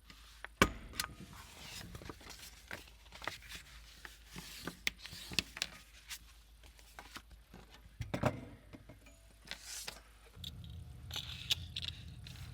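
Hands handling craft and packing materials on a work table: an irregular run of taps, clicks and light scrapes, with a sharp knock about half a second in. A low steady hum comes in near the end.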